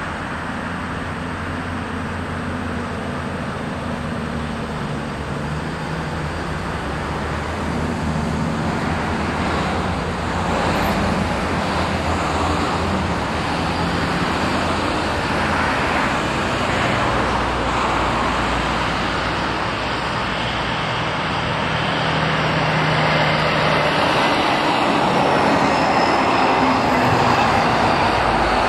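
Road traffic noise, a continuous rush of passing vehicles with a low hum, slowly growing louder.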